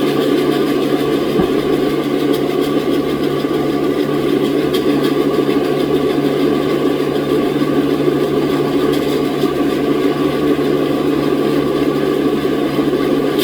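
Sawmill machinery running with a loud, steady mechanical drone and a constant low hum.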